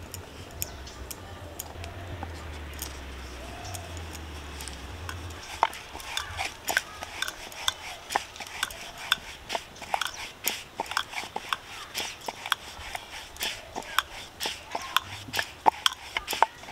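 Wooden rolling pin working roti dough on a wooden rolling board, with irregular clicks and knocks of the pin against the board. The clicks are sparse at first and come thick and fast from about five seconds in.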